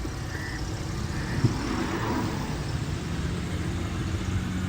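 Steady background noise, a low rumble with hiss, and no speech. There is a faint click about one and a half seconds in, and a faint low hum joins after about three seconds.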